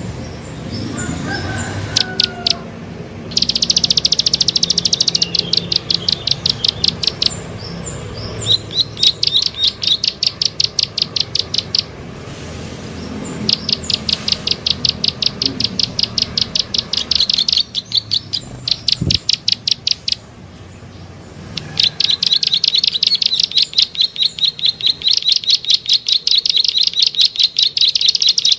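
Prenjak sawah (plain prinia) singing its rapid clicking trill, the 'klik' call used as a bird-trapping lure. The notes run at roughly ten a second in bouts of a few seconds with short pauses between.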